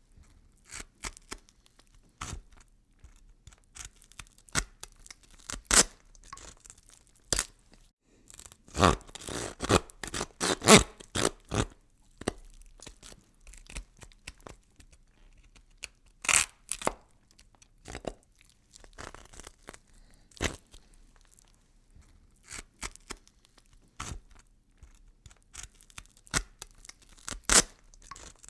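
Horror gore sound effect of irregular crunching, tearing snaps and cracks, thickening into a dense cluster about nine to eleven seconds in.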